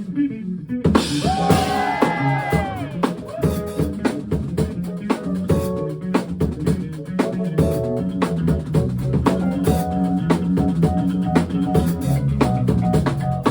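Funk band playing: an electric bass line with strong low notes over a drum kit with rimshots, with keyboard chords. About a second in, a cluster of notes bends up and back down in pitch before the groove settles.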